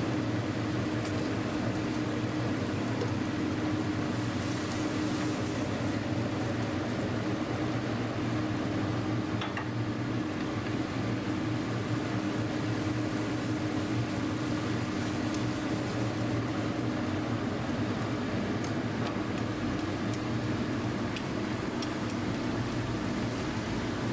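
Steady mechanical hum of kitchen equipment beside a gas burner, with a few light clicks of chopsticks against the steel frying pan as the noodles are stirred.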